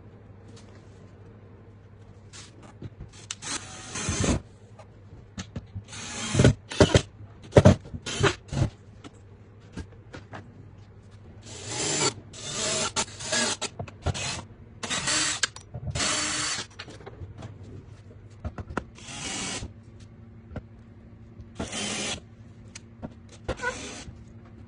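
Bosch 14.4 V cordless drill-driver running in short bursts of about a second each, driving screws into the cabinet's wooden panels. Several sharp knocks come about a quarter of the way in.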